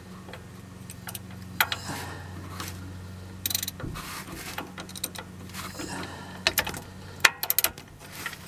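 Metal wrench clicking and clinking against the serpentine belt tensioner as it is fitted and worked. The sharp clicks are scattered, with quick runs about three and a half and seven and a half seconds in, over a low steady hum.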